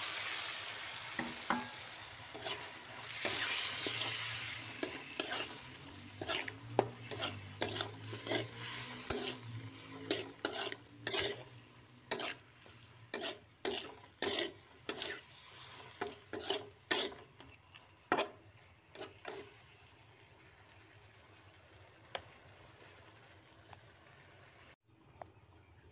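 Raw prawns sizzling in hot oil in a wok, then a spatula scraping and knocking against the wok as they are stir-fried, about two strikes a second. The strikes stop after about 19 seconds, leaving a faint sizzle.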